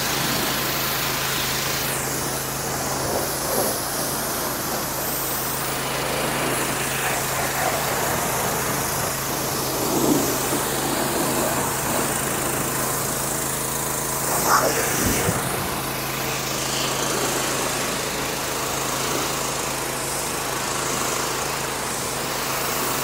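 Pressure washer running steadily with its water jet spraying in a constant hiss, with brief louder moments about ten and fourteen seconds in.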